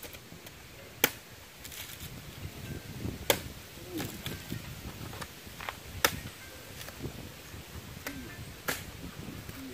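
Four sharp chopping strikes with a blade, about two and a half seconds apart, with a few fainter knocks between them.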